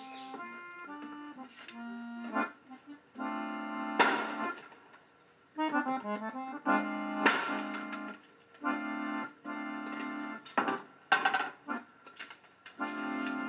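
Accordion music playing held chords, broken by several sharp knocks of a hammer striking a wooden deck post, loudest about four, seven and eleven seconds in.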